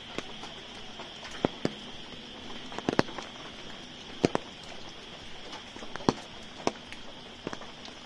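Footsteps on a wet brick path: irregular sharp taps, often in close pairs, over a steady high-pitched drone.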